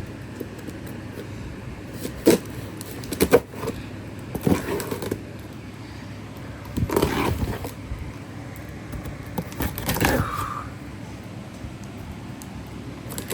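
A cardboard shipping box being opened and handled: scattered scrapes, rustles and knocks a second or two apart, over a steady low hum.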